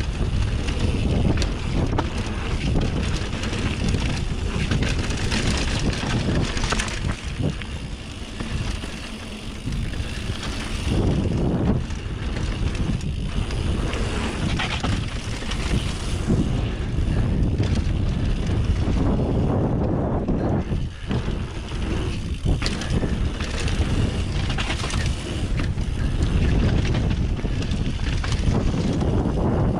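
Mountain bike running fast down a dirt trail: tyres rolling over packed dirt, stones and dry leaves, with frequent knocks and rattles from the bike over bumps. Wind rushes over the microphone throughout.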